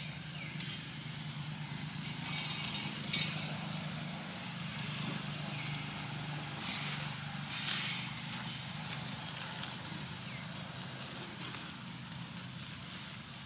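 A motor vehicle's engine running steadily as a low hum that fades near the end, with several brief hissy noises over it.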